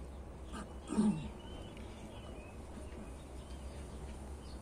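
A single short, low animal call about a second in, falling in pitch, followed by a few faint high chirps.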